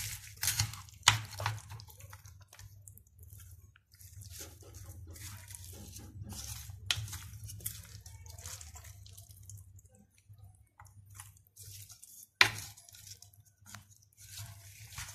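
Sliced onions, spices and raw beef being tossed by hand and with a wooden spoon in a clay tajine dish: irregular wet squishing and rustling, with two sharp knocks of the spoon against the dish, about a second in and again near the end. A low steady hum runs underneath.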